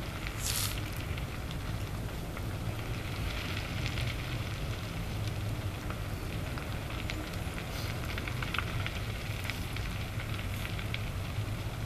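Large wooden temple structure burning: the fire gives a steady low rumble with scattered crackles and pops of burning timber, and a few short hisses.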